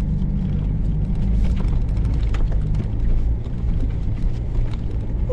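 Vehicle engine running with a steady low drone inside the cab while driving slowly over a rough stony track, with frequent short knocks and rattles as the vehicle jolts over the ground.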